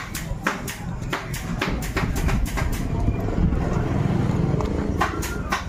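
Yamaha Mio i 125 scooter's single-cylinder four-stroke engine running, with sharp clacks repeating about two to three times a second over the engine hum. The engine note strengthens for a while past the middle. It is the 'lato-lato' clacking that the owner shows as a symptom of the replaced block, in an engine that is also losing oil.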